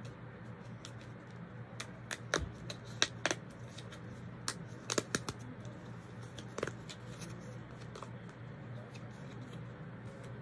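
Hands handling something small close to the microphone: a scatter of sharp clicks and crinkles, busiest between about two and seven seconds in, over a steady low hum.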